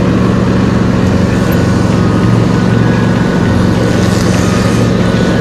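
John Deere S120 riding lawn mower running steadily while mowing, its engine a continuous loud drone.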